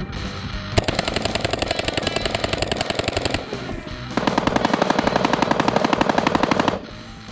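AR-15 bump-fired with a Slide Fire stock: two long strings of rapid shots, about ten a second, each lasting over two seconds with a short pause between.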